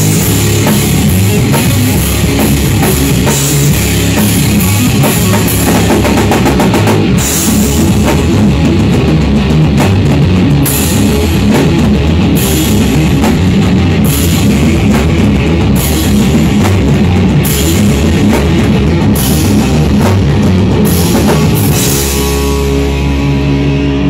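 Stoner rock band playing live: heavily distorted electric guitar and bass over a pounding drum kit with regular crash cymbals. Near the end the cymbals stop and held notes ring on.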